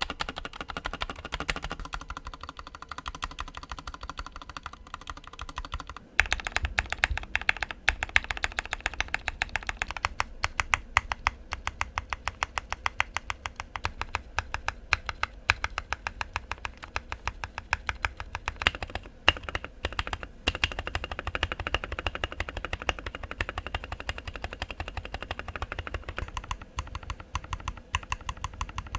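Fast, continuous typing on a Rakk Lam Ang Pro mechanical keyboard with lubed and filmed Gateron Milky Black linear switches, foam- and tape-modded. The keystrokes grow louder and fuller about six seconds in.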